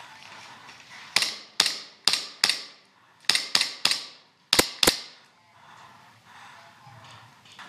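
Airsoft replica firing single shots: nine sharp cracks in three quick groups of four, three and two, each about a third to half a second apart. The last pair, a little after the middle, is the sharpest.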